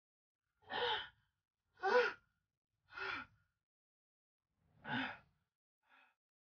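A man with a head cold making short breathy sighs into a tissue: four brief sounds, the first three about a second apart, each falling in pitch, with a fainter one near the end.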